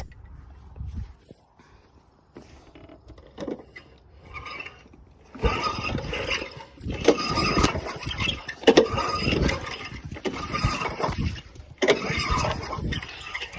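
Honda walk-behind lawnmower being pull-started several times, each pull lasting a second or two, with the engine turning over but not catching.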